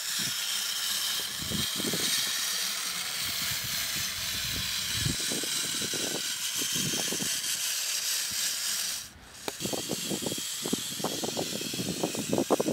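Small electric drive motor of a toy RC tractor running as it drives across concrete towing a trailer, a steady hiss with faint scattered knocks. About nine seconds in the hiss cuts off, leaving scattered clicks and rattles.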